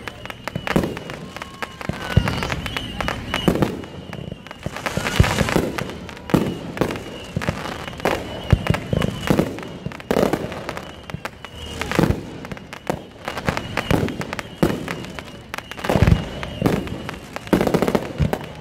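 Fireworks show: aerial fireworks going off in a rapid, irregular series of bangs and crackles.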